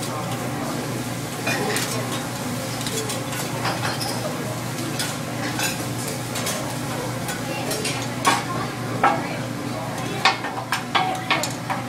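Food sizzling on a teppanyaki flat-top griddle while the chef's metal spatulas scrape and tap against the steel, with a run of sharp clacks in the last few seconds.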